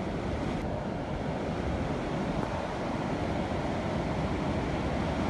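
Steady rush of ocean surf breaking and washing below, with wind on the microphone, growing a little louder toward the end.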